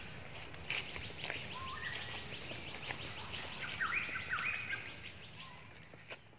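Outdoor ambience with short whistled bird calls and a rapid high ticking trill in the middle, all fading out near the end.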